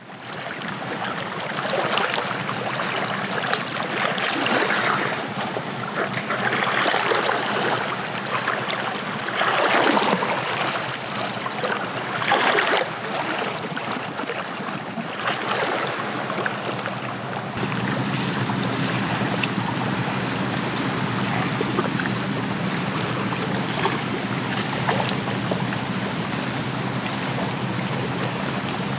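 Water rushing and splashing in swells, then, about two-thirds of the way through, an abrupt change to a steadier, deeper rush of water.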